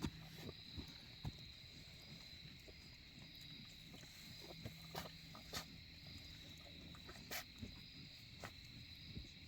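Faint steady trilling of night crickets, over a low hum, with scattered soft knocks and rustles. The clearest knocks come about 5 and 7 seconds in.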